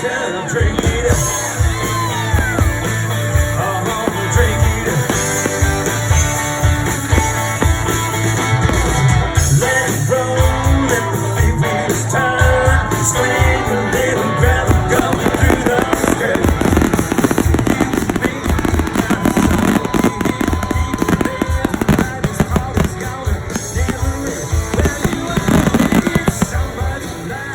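Live band playing an upbeat rock song with a steady, loud drum beat.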